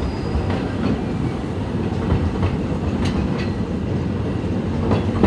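Vintage narrow-gauge steam train running along the track: a steady low rumble with wheels clicking over the rail joints every second or so.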